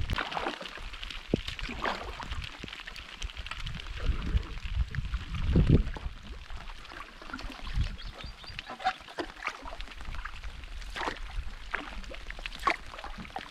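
Canoe paddling: irregular splashes and drips of water off the paddle blade. About halfway through, a low rumble of wind buffets the microphone.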